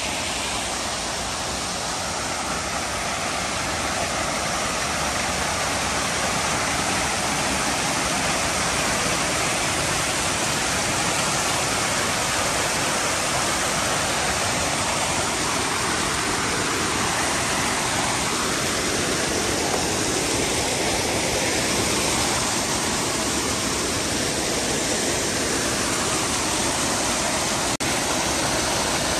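Steady rush of running water, without a break.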